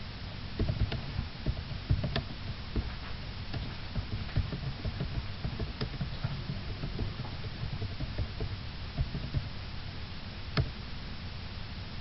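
Irregular light clicks and knocks over a steady low hum, with one sharper click near the end.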